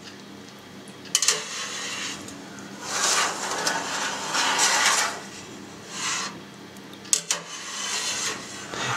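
Wire cheese harp drawn through soft curd in a stainless steel pan while the curd is cut into about 1 cm cubes: a few scraping swishes, with sharp clicks of the metal harp against the pan about a second in and again near the end.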